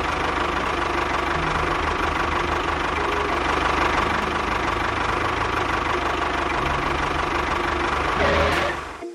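Tractor engine running steadily with a fast, even, knocking chug, cutting off suddenly near the end.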